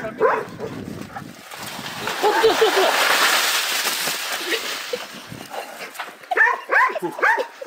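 A small dog yipping and barking in short calls, with a long rushing hiss in the middle as snow slides off a tiled roof.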